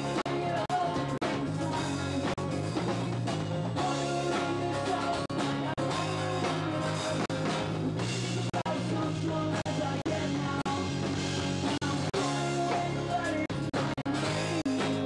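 Live rock band playing a song: acoustic guitar strummed hard together with electric guitar and drums, under a man's singing.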